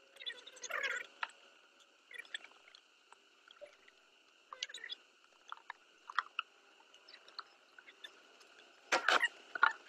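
Wooden beehive parts being handled: scattered light clicks, scrapes and knocks as frames and boxes are moved, with a cluster of louder crackling knocks near the end. The sound is thin, with no low end, as heard through a video call.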